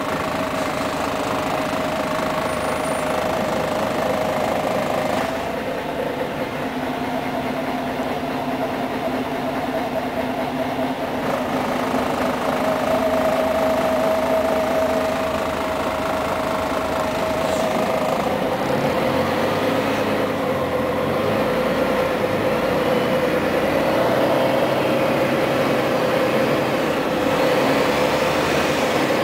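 Inside a 1999 Scania CN113CLL city bus under way: its diesel engine and drivetrain drone steadily. The engine tone shifts in pitch a few times as the bus changes speed and climbs near the end.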